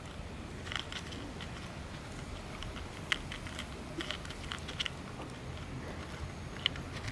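A cat chewing dry food, with soft, irregular crunches over a low steady background hum.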